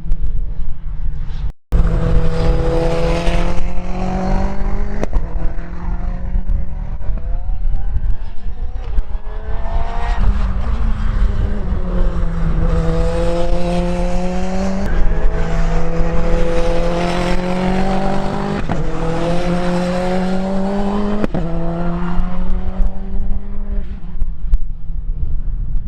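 Praga R1T race car engine at high revs, its pitch climbing under acceleration and dropping sharply at each upshift, several times over, with stretches of lower, falling revs between.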